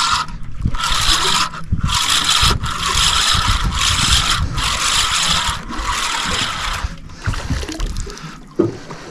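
Fishing reel being wound in quick bursts of whirring, about one burst every second, as a hooked fish is reeled up to the boat; the bursts thin out near the end.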